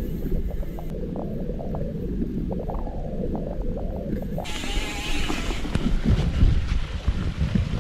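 Riding noise of a gravel bike on a wet, sandy dirt track, picked up by a bike-mounted camera: a low rumble of tyres and wind on the microphone, with scattered small ticks and rattles. About halfway through it turns abruptly into a brighter hiss.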